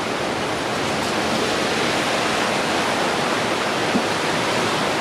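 A steady, loud rushing noise with no rhythm or pitch.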